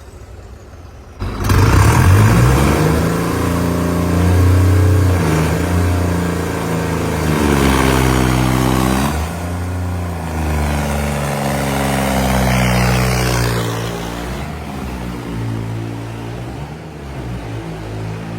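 New Holland tractor diesel engine, fitted with a modified fuel injection pump, revved hard. About a second in the throttle opens suddenly, and the engine speed then rises and falls several times before easing off near the end.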